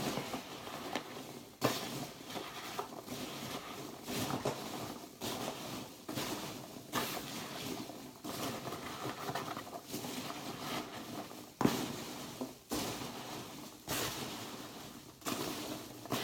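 Hands rummaging in a cardboard shipping box: irregular rustling and scraping with scattered sharp knocks, the loudest about one and a half seconds and eleven and a half seconds in.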